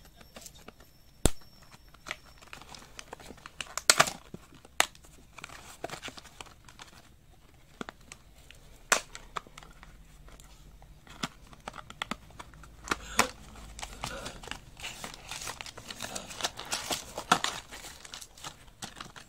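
Clear plastic box packaging crinkling and clicking as hands work it open. There are scattered sharp snaps, a cluster about four seconds in, and denser crinkling in the later part.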